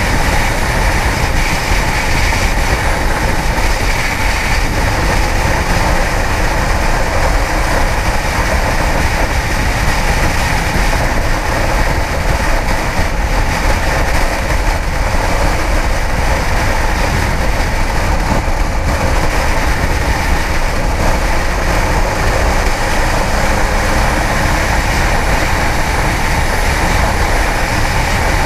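Kawasaki ZX-10R inline-four sport bike engine running at riding speed under a steady, loud rush of wind noise on the microphone.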